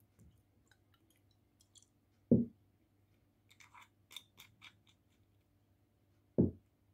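Kitchen handling sounds while a salad is being dressed: two dull knocks about four seconds apart, with a short run of light clicks and rustles between them.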